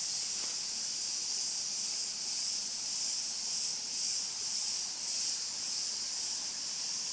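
Steady, high-pitched buzzing chorus of insects in the trees, gently swelling and fading.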